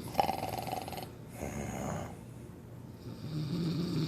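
A woman snoring heavily in her sleep: a loud buzzing snore for about a second, a softer breath, then another snore starting about three seconds in.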